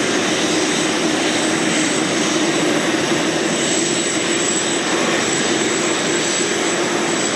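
Jet airliner engines running steadily: an even rushing noise with a thin, high whine on top.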